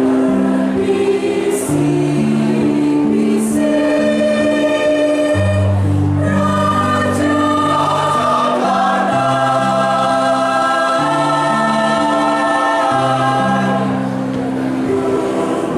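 Choir singing in harmony, with held chords that change every second or so.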